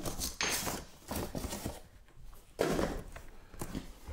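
Rustling and bumping of cardboard and packaging as parts of a boxed chain grinder are handled and lifted out, in two bouts about two seconds apart.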